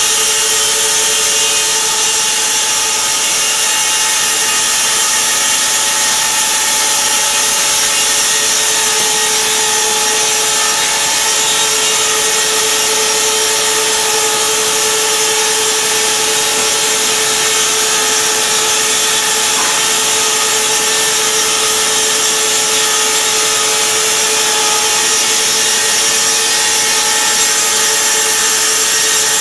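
Shen Ko SKG 230S multiple-spindle vertical slicer running under load, its saw blades ripping a wooden board lengthwise into thin slats. It makes a loud, steady rush of sawing noise with a constant hum-like tone that does not let up.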